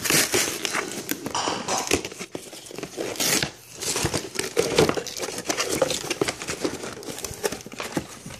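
Cardboard toy packaging being torn open by hand, with plastic crinkling: irregular tearing, rustling and crackling.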